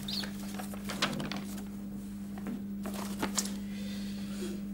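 Sheets of paper rustling in short, scattered crackles as they are handled and opened, over a steady low hum.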